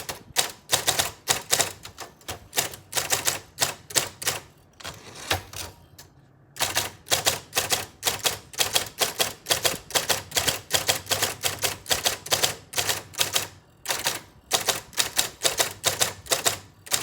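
Royal Apollo 10 electric typewriter typing: a fast run of sharp key strikes, several a second, over the low hum of its running motor. There is a short pause about five to six seconds in.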